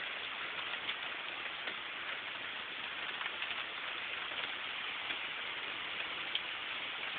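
Steady rain falling, an even hiss with scattered drop ticks, heard through a phone's microphone.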